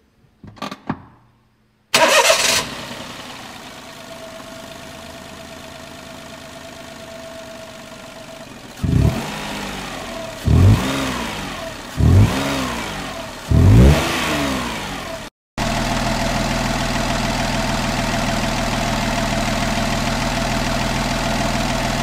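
Daihatsu Mira Cocoa's three-cylinder 660 cc engine starting and settling to idle, then blipped four times, each rev rising and falling back smoothly, then idling steadily, heard closer and louder. With fresh spark plugs, air filter and oil, it revs up freely without catching.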